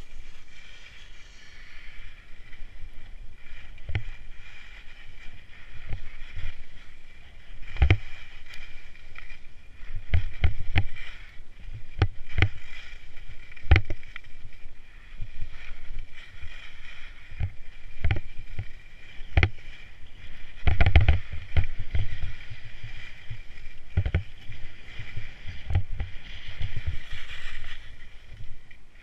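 Skis sliding and scraping over packed snow on a downhill run, with wind rushing over the camera's microphone. Irregular knocks and thumps run through it, heaviest about three quarters of the way through.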